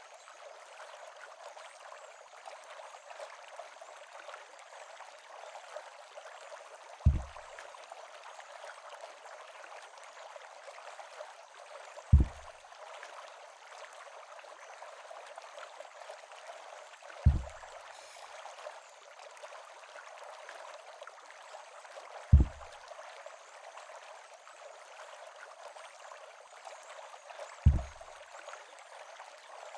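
Steady rushing of a stream beneath a wooden covered bridge, broken five times by a short, deep thud about every five seconds, which the uploader presents as footsteps on the bridge.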